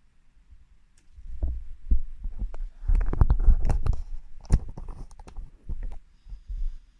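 Handling noises: a string of soft thumps, knocks and clicks, busiest between about one and six seconds in.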